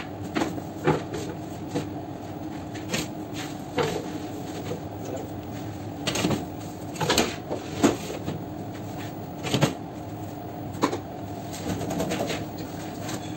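Irregular knocks and clatter of freshly baked lagana flatbreads being handled onto metal baking trays and into wire baskets, loudest around the middle, over a steady machine hum from the bakery ovens.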